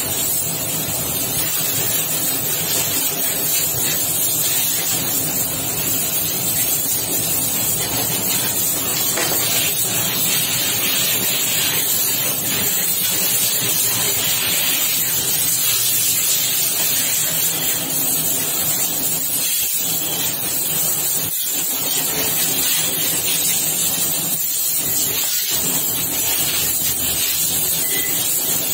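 Steady loud hiss with a faint low hum underneath, and a few light clicks of hand tools on metal in the second half.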